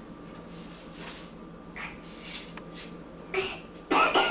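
Soft rustling and shuffling of babies moving about on a kitchen floor and inside a low cabinet among pots and pans, with a few short, louder noises near the end.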